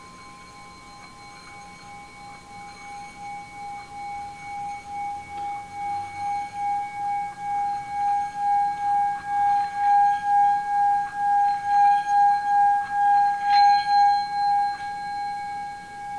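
Singing bowl being rubbed around its rim, one steady ringing tone that builds steadily louder with a regular wobble of about two pulses a second.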